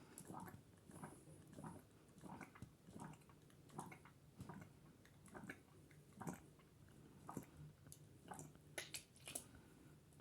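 Domestic cat retching before vomiting: faint short gagging heaves, one or two a second at uneven intervals.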